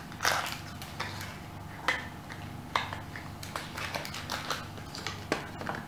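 Cardboard-and-plastic blister packaging being peeled open by hand: irregular crinkling and rustling, with a few sharper crackles scattered through.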